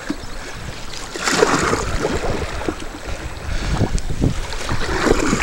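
Choppy river water slapping and splashing against a wooden dugout canoe's hull, with wind buffeting the microphone.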